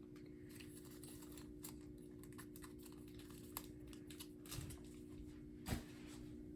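Faint scattered clicks and light rattling of smoke-alarm wire harnesses being handled and put away in an accessories bin, with one sharper knock near the end, over a steady low hum.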